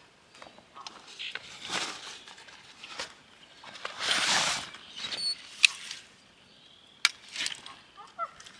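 Folding camp chair being pulled out of its fabric carry bag and opened: bursts of cloth rustling and sliding, the loudest about four seconds in, then a few sharp clicks from the chair's metal frame.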